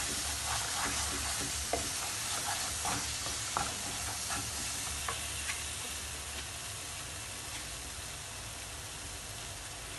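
Thick spiced tomato and onion base (Ethiopian kulet) sizzling in a frying pan while a wooden spatula stirs and scrapes through it. The scrapes come in the first half; then the spatula rests and the steady sizzle slowly fades.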